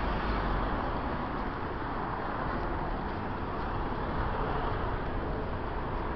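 Steady city road traffic noise, cars and buses running along the street.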